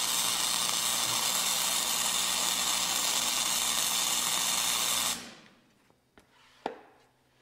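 MIG welding arc burning a bead on a steel frame, a steady crackling hiss that cuts off abruptly about five seconds in, followed by a couple of faint taps.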